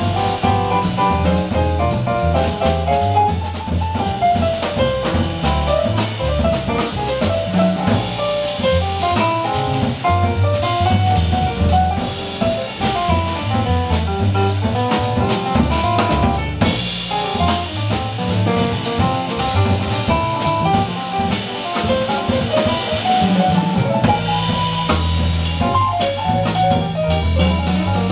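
Live jazz played by piano, upright double bass and drum kit: quick single-note lines moving up and down over a steadily stepping bass line and continuous drums and cymbals.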